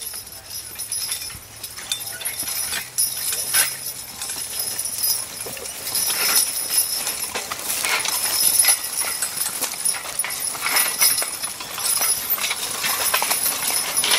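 Draft horses pulling a Pioneer Homesteader horse-drawn plow through dry, hard ground: hoof steps and irregular clinks and knocks of harness and metal.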